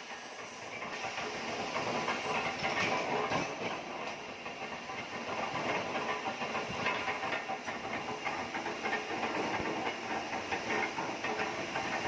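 CNC oxy-fuel cutting torch hissing steadily with a fine crackle as it cuts through steel plate.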